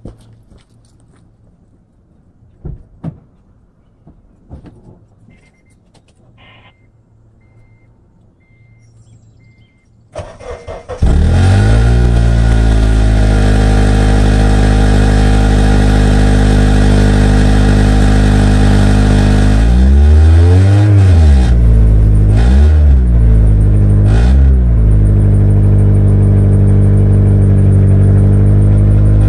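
Honda Element's K24 2.4-litre four-cylinder started from cold: after a few quiet clicks and a faint repeating beep, it cranks and catches about ten seconds in, then idles loudly with three short revs. The exhaust leaks where the resonator's spot-welded seam has blown open.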